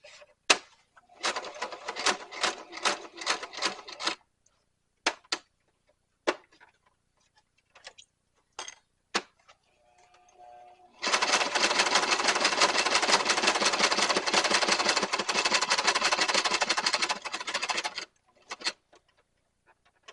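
Sewing machine stitching through a leather belt strap. Near the start come a few seconds of separate stitches at about four or five a second, then scattered single clicks, then about seven seconds of steady, fast running that stops abruptly.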